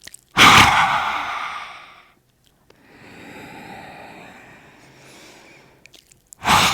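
Lion's breath in yoga: a woman breathes out forcefully through the open mouth with the tongue stretched out, a loud sharp "ha" that fades over about a second and a half. A quieter, slower inhale follows, then a second sharp "ha" exhale near the end.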